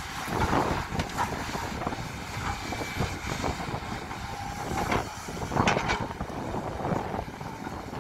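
SANY SY215C hydraulic excavator running under load as it empties its bucket of soil into a dump truck and swings back to dig, a steady engine rumble broken by irregular clanks and scrapes of bucket and soil.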